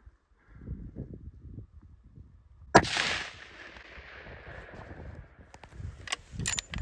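A single rifle shot about three seconds in, its report echoing and dying away over about two seconds. It is the first shot at the bull moose, and it hits. A few sharp clicks follow near the end.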